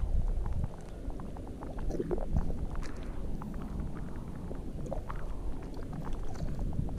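Shallow seawater sloshing and lapping, with small splashes and trickles as a hand pushes at a stingray in the shallows, over a low rumble of wind on the microphone.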